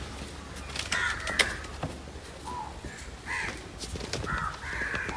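Crows cawing, several short harsh calls scattered through, some overlapping.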